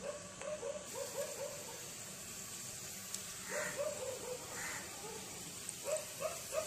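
Hot oil sizzling steadily as a small poori fries in a miniature clay pot. Over it, an animal calls in three runs of three or four short, quick notes.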